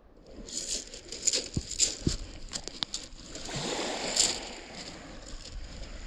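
Small beach pebbles clicking and shifting in quick, irregular ticks, mixed with the rustle of a hand rubbing a wet dog's fur.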